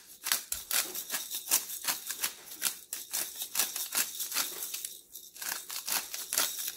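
Black pepper grinder being twisted over a pot: a fast, uneven run of crunching clicks as peppercorns are cracked, with a short pause about five seconds in.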